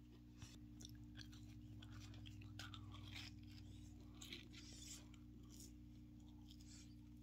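Faint chewing and mouth clicks as French fries are eaten close to the microphone, over a steady low hum.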